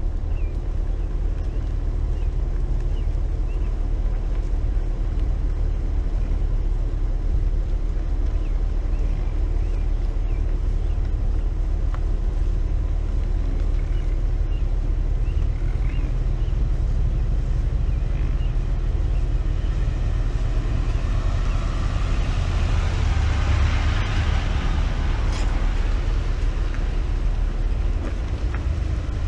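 Vehicle moving slowly, a steady low rumble of engine and wind on the outside microphone. A rushing hiss swells about two-thirds of the way through and fades again near the end.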